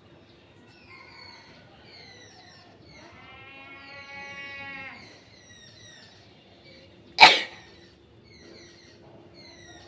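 One short, forceful nose blow about seven seconds in, the loudest sound by far. Small birds chirp throughout, and a steady pitched sound holds for about two seconds near the middle.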